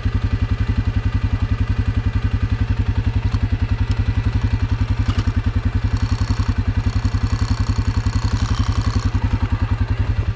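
ATV engine idling in neutral with a steady, rapid, even pulse.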